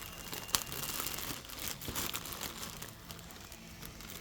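Packaging crinkling and rustling as a package is opened by hand, with a sharp click about half a second in.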